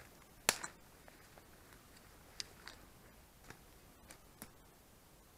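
Scattered sharp snaps and cracks of dry twigs and dead branches as someone pushes on foot through dense undergrowth. About half a dozen separate snaps, the loudest about half a second in.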